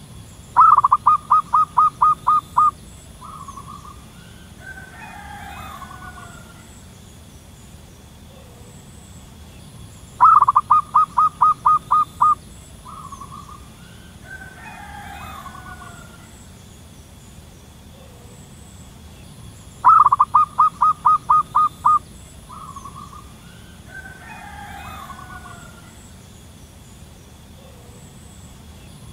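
Zebra dove singing: three bouts about ten seconds apart, each a quick run of about ten short cooing notes ending in one short separate note. A fainter, more complex bird call comes between the bouts.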